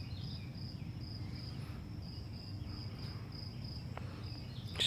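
Insects chirping in a steady, evenly pulsing high trill over low outdoor background noise.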